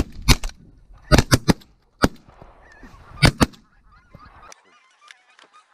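Geese honking: a run of short, sharp honks, several in quick succession about a second in and a pair a little after three seconds, followed by fainter, more distant calls.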